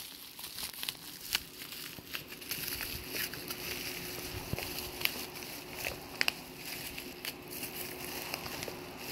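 Black plastic packaging crinkling and crackling as hands pull and tear at it to open the parcel, with many short sharp crackles scattered throughout.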